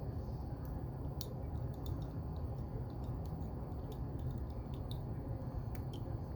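Faint, scattered clicks and ticks of small plastic Lego pieces being handled and fitted together, over a steady low hum.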